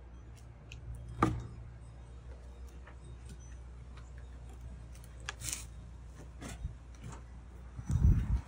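Scattered knocks and clicks of a heavy flagstone and wooden rolling logs being shifted by hand, with one sharp knock about a second in and a heavier thud near the end, over a steady low hum.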